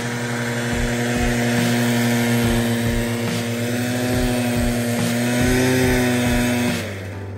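Gas backpack leaf blower's two-stroke engine running at high speed, blowing snow. Its pitch rises slightly about four seconds in, and it stops near the end.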